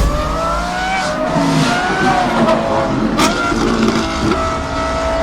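Ferrari 812 Competizione's naturally aspirated V12 engine running hard, its note rising and falling in pitch. A sharp crack comes about three seconds in, and after it the engine holds a steady high note.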